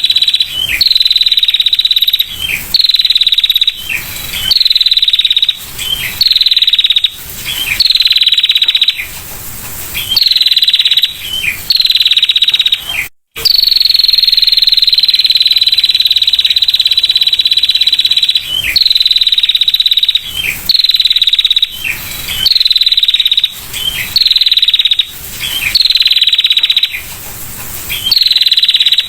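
Female bar-winged prinia (prenjak) giving its 'ngetir' call: a high, fast rattling trill about a second long, ending in a short downward slur, repeated over and over with short gaps. A few brief bursts of broad noise fall between some calls.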